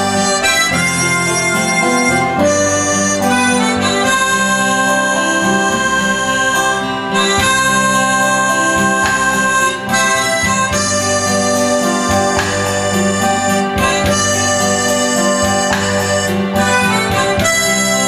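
Harmonica playing a melody into a stage microphone over a steady backing accompaniment.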